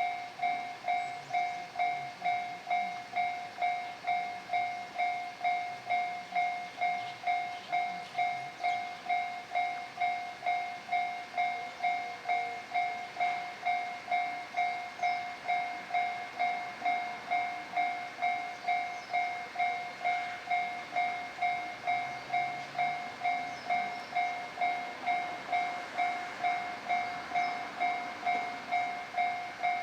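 Japanese railway level-crossing warning bell ringing, one electronic ding repeating evenly about twice a second.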